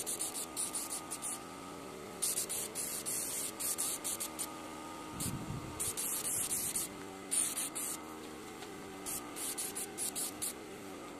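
Gravity-feed air spray gun spraying finish onto a wooden stool in repeated short hissing bursts, the trigger pulled on and off many times.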